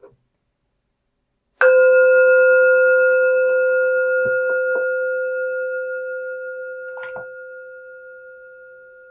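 Meditation bell struck once about a second and a half in, ringing with a clear low tone and higher overtones that fade slowly. It marks the end of the meditation practice. A few faint knocks sound while it rings.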